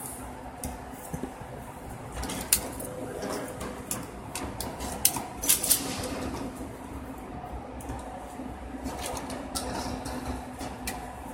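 Shotgun shells being pushed one by one into a shotgun's tube magazine: a string of sharp, irregular metallic clicks, the loudest a little past two seconds and around five to six seconds.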